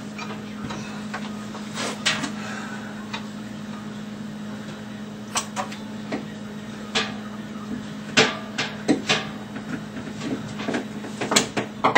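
Scattered knocks and clunks of a CO2 cylinder being worked into place among kegs and gas hoses inside a fridge, over a steady low hum. The knocks come more often in the last few seconds.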